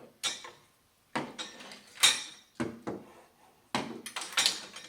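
Curtain track parts being handled and knocked together on a desk: a string of sharp clacks and rattles, the loudest about two seconds in.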